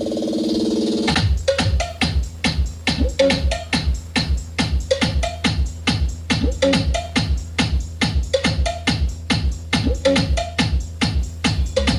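DJ remix of electronic dance music played back through a class-D amplifier for a sound test. A held synth chord lasts about a second, then a fast, steady drum-machine beat with heavy bass comes in.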